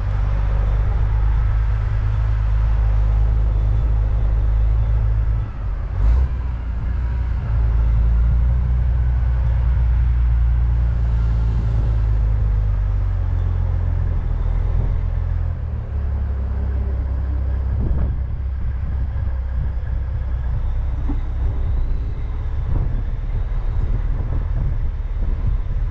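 Dump truck's diesel engine running at low speed with a deep rumble that changes note a few times, about six seconds in and again past the middle, along with a clunk about six seconds in and a few lighter knocks and rattles from the truck rolling over gravel and rutted dirt.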